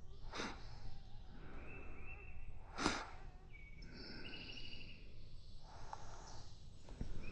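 Birds singing: short whistled phrases and a buzzy trill over steady outdoor background noise, with two short sharp noises about half a second and three seconds in.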